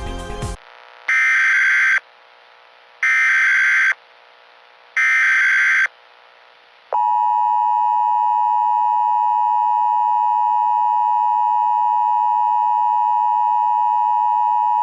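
Emergency Alert System SAME header: three loud bursts of screechy digital data tones, each about a second long and two seconds apart, followed about seven seconds in by the steady two-tone EAS attention signal, which marks the start of a Required Monthly Test.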